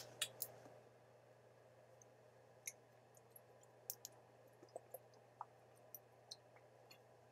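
Near silence: faint scattered clicks from a plastic water bottle being handled and drunk from, a couple of sharper ones in the first half second, over a low steady hum.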